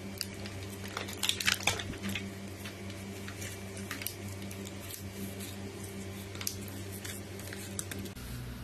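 Thin clear plastic packaging film crinkling and rustling as hands peel it off, with scattered small crackles and the densest crackling about a second in, over a steady low hum.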